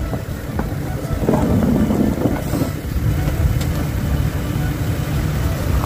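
Car engine running as the sedan creeps slowly across an icy parking lot to re-park, a steady low rumble close by.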